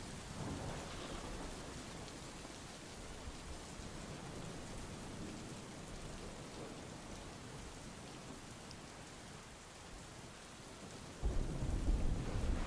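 Steady rain falling against the windows in a storm. Near the end a sudden, louder low rumble comes in.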